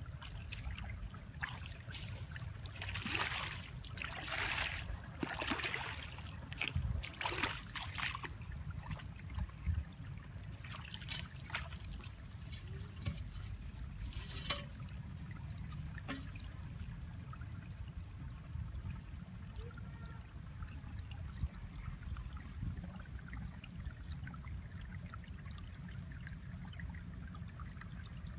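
Shallow water splashing and trickling, with a run of louder splashes in the first several seconds and scattered smaller splashes after, over a steady low rumble.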